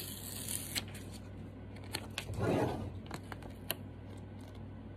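Paper sticker label being peeled and handled: a short rasp near the start, then scattered paper rustles and small clicks, the loudest rustle about two and a half seconds in. A low steady hum runs underneath.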